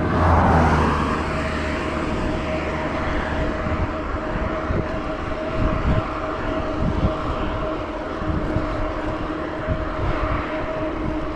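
A vehicle rushes past in the first second. After it come a steady whine and gusty wind rumble on the microphone as the electric bike rides along.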